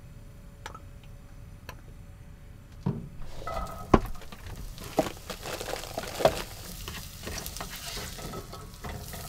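Diced vegetables tipped into a hot cast iron skillet about three seconds in, hitting the pan and starting to sizzle, followed by frying with a few sharp knocks and scrapes as they are stirred.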